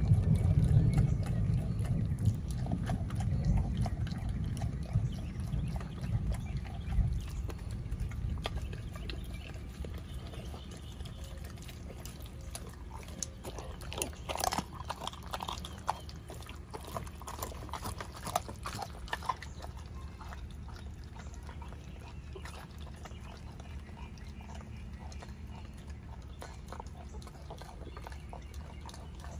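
A pit bull chewing and tearing at a whole raw chicken: wet gnawing with sharp crunches and clicks, densest about halfway through. A low rumble sits under the first several seconds.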